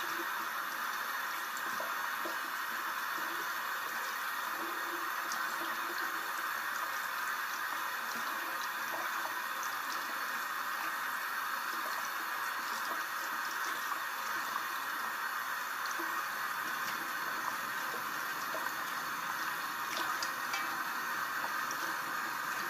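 Bathroom sink faucet running in a steady stream, the water splashing over a doll's hair held under it and into the basin, with a few faint ticks and drips.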